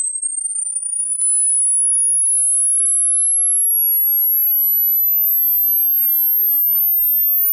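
Hearing-test frequency sweep: a single pure, very high electronic tone climbing slowly and steadily in pitch toward the upper limit of hearing. A brief click about a second in, after which the tone is smoother and rises more slowly.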